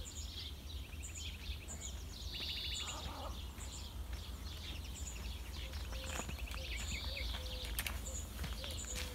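Several songbirds calling and singing in the countryside: repeated high chirps, short rapid trills and buzzy notes, with a run of short low notes from about six seconds on. A steady low rumble lies underneath, and a few sharp clicks come near the end.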